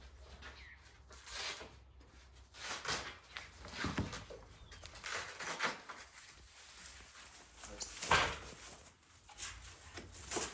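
Irregular rustling and scraping of packaging being handled as screen track parts are unwrapped, with a louder burst about eight seconds in.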